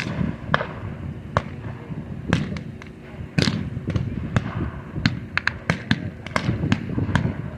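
Scattered blank gunfire in a reenacted infantry firefight: irregular single shots, some faint and distant, a few louder and closer, with the sharpest cracks around two and three and a half seconds in.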